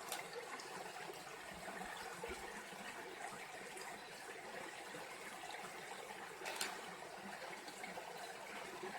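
A stream running, a faint steady rush of water, with one short click about six and a half seconds in.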